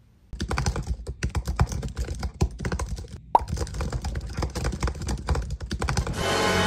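Fast typing on a laptop keyboard: a dense, irregular clatter of key clicks, with one short high blip about three seconds in. Music comes in near the end.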